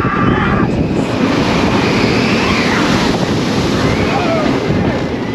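Loud, steady wind rush buffeting the microphone of a handheld camera riding a roller coaster at speed. A few long yells from riders rise and fall over it.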